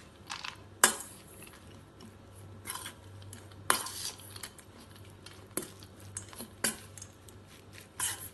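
Metal spoon stirring a moist salad of soaked moong dal and grated vegetables in a stainless steel bowl: soft scraping with irregular sharp clinks of spoon on steel, the loudest about a second in and near four seconds.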